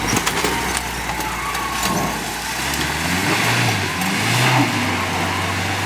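Toyota 4Runner's engine revving up and easing off a few times as it drives through a muddy trail, with tyre and mud noise and scattered clicks over it.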